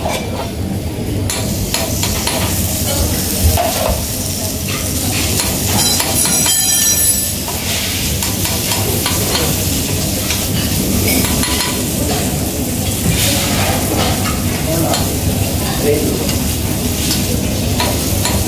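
Dosa batter sizzling on a flat steel griddle while a steel spatula scrapes and taps against the griddle and a steel tray, scooping potato masala. There is a brief high screech about six seconds in.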